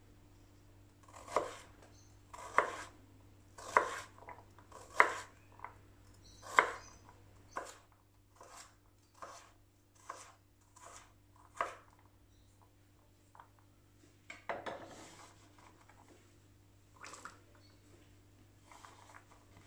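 Knife chopping sweet potato on a wooden cutting board: several loud cuts about a second apart, then quicker, lighter cuts as it is diced into small cubes. About two-thirds of the way in comes a longer scraping sound, then light clatter as the cubes are gathered into a steel pot.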